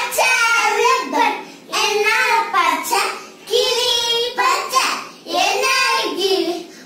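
Children singing a Tamil song, in short phrases with brief breaks between them.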